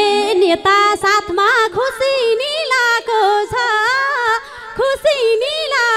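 A woman singing a Nepali lok dohori verse solo into a microphone, a high voice with bending, ornamented phrases and no instruments behind it.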